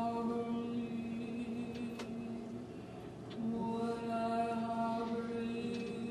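Voices chanting a long held note on one steady pitch. The note breaks off about two and a half seconds in and is taken up again about half a second later, with a faint click or two around the break.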